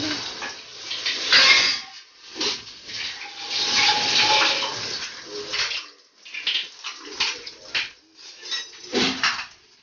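Beaten eggs sizzling in a hot aluminium kadhai, a hiss that swells and fades unevenly and cuts off suddenly at the end.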